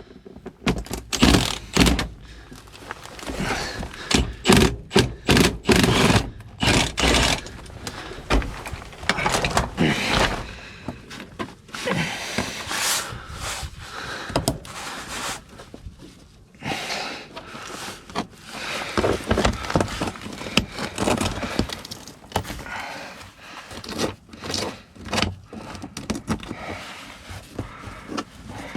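Irregular knocks, clunks and scraping from hands-on work on a truck that won't start, metal being handled and struck.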